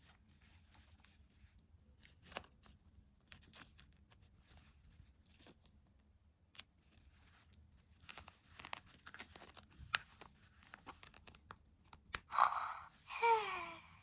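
Toy packaging being torn, cut and handled, with scattered faint rips, clicks and crinkles. Near the end come two short voice-like sounds, sliding down in pitch, which are the loudest part.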